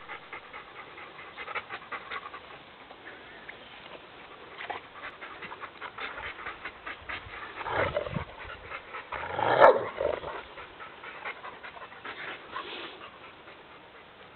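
Bernese mountain dogs panting in quick short breaths while they wait for a treat, with two louder bursts of noise a little past halfway.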